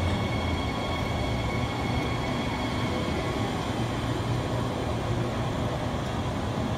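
Transperth B-series electric train standing at the platform, its on-board equipment giving off a steady hum.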